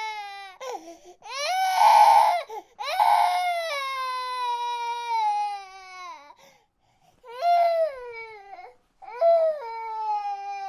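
A baby crying: long wails that slide down in pitch, broken by short gasps for breath, then two shorter cries in the last few seconds.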